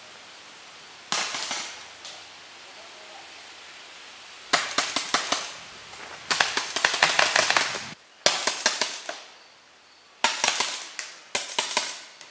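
Paintball markers firing rapid strings of shots in six bursts of about half a second to a second and a half each, with short pauses between.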